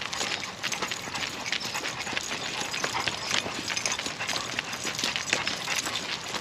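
Footsteps of a person and the paws of several dogs walking briskly on pavement: a dense, irregular patter of clicks and taps.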